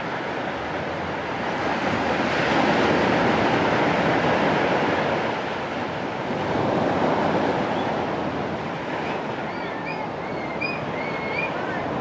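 Caribbean Sea surf washing in over a rocky shore, a steady rush that swells twice as waves come in, with a few short high chirps near the end.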